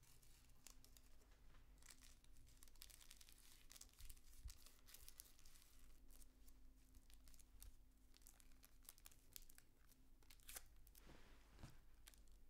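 Cigarette rolling paper crinkling and rustling as a roll-up is rolled between the fingers: many faint, quick crackles.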